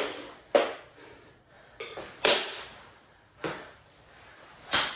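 Mini hockey sticks knocking against the floor and the ball or puck during play: a string of sharp plastic clacks, about one a second, the loudest a little past two seconds in.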